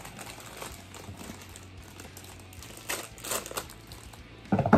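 Packaging crinkling in a few short rustles as a collectible is unwrapped by hand, with a short loud bump near the end.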